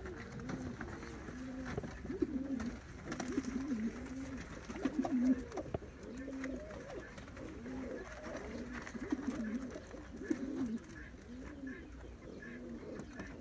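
Domestic pigeons cooing: low coos with short rising and falling turns, repeated phrase after phrase, thinning out near the end.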